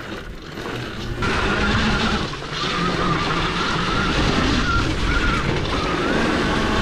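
Homemade electric dirt bike with a Zero SR motor, ridden off-road: quieter for about the first second, then louder, with the electric motor's high whine wavering with the throttle over tyre and wind noise.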